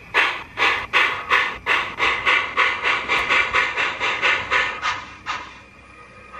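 Steam sound from a model New York Central streamlined steam locomotive's sound unit: rhythmic hissing chuffs that quicken from about two to about four a second, then fade out near the end as the engine moves away.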